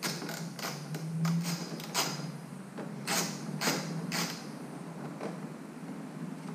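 Hand tools and the motorcycle's mirror and fairing parts being handled as the 8 mm mirror bolts come out: about a dozen irregular clicks and light knocks, over a low steady hum.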